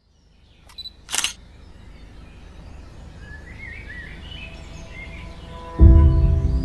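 Logo intro sound effects: a small click, then a short swoosh, followed by a quiet outdoor ambience with birds chirping that swells slowly. About six seconds in, music with a deep bass comes in suddenly and loudly.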